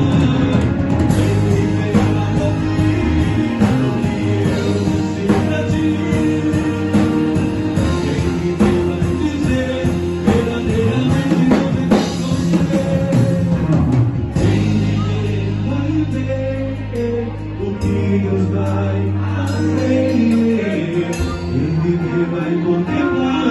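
Music: a wordless instrumental stretch of a Portuguese-language gospel song, with a band of drums, bass and held keyboard chords.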